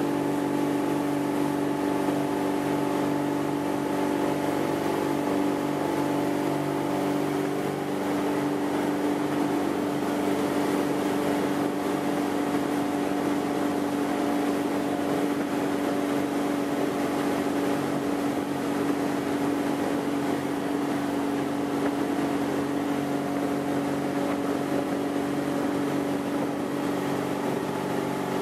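Malibu ski boat's inboard engine running steadily at towing speed, with water rushing along the hull and wake.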